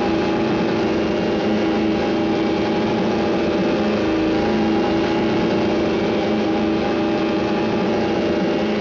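A small engine or motor running steadily at an even pitch, a cartoon-style motor sound effect.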